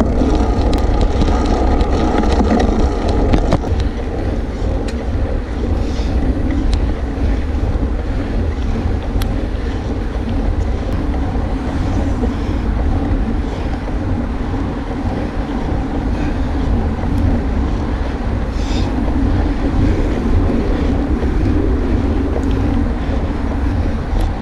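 Wind rushing over the camera microphone on a moving road bike, a steady low rumble with no pauses.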